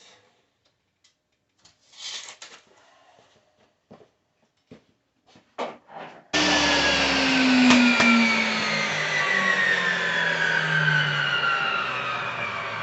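A few handling knocks and clicks, then an electric saw's motor starts abruptly about six seconds in and runs loudly, its whine slowly falling in pitch.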